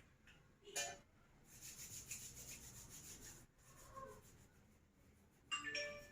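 Faint rubbing and rustling as nursing equipment is handled and set out, with a sharp click about a second in and a short knock with a brief ringing tone near the end.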